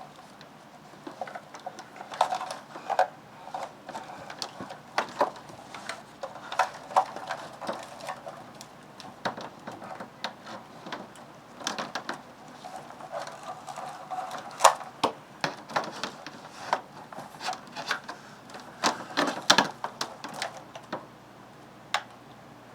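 Irregular clicks, taps and rattles of plugs, cables and small equipment being handled and moved.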